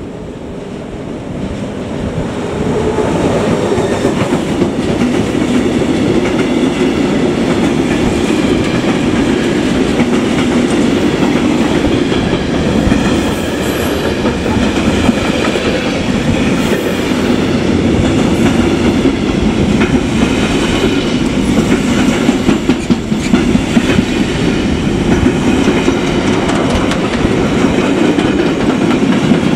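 Freight train rolling past at close range: a steady rumble of wagon wheels on the rails, with sharp clicks from the wheels. The sound swells about two seconds in as the train draws level, then holds.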